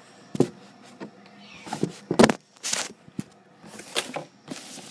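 Handling noise from a phone camera: a couple of sharp knocks and several short scuffs and rubs against the microphone as it is moved about.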